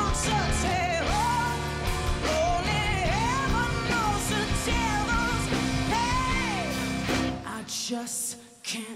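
Live rock band playing: a woman singing over electric guitar, bass, drums and keyboard. The band cuts out briefly near the end.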